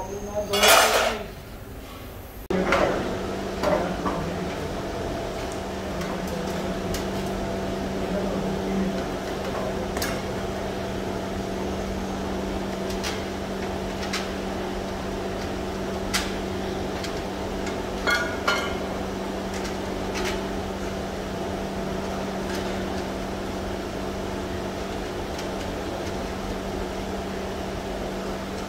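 A steady mechanical hum with a few sharp metal clicks and taps as motorcycle seat-base brackets are handled and fitted. A short loud burst of noise comes in the first second.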